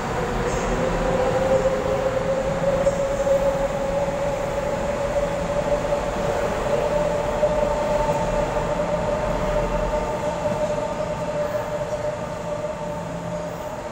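EMU500 electric multiple unit pulling out and accelerating, its cars rolling past on the rails with a whine from the traction motors that rises slowly in pitch and then holds steady. The sound fades over the last few seconds as the train draws away.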